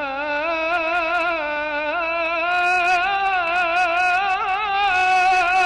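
A male chanter singing Egyptian ibtihal unaccompanied, drawing out one long, ornamented melisma on a held vowel with no words, the pitch wavering and turning in small runs throughout.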